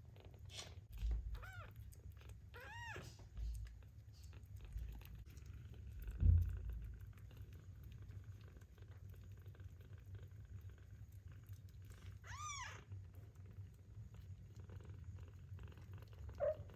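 Kittens purring in a low steady rumble, with a few short high mews that rise and fall in pitch, the clearest about three seconds in and about twelve seconds in. A soft low thump about six seconds in is the loudest moment.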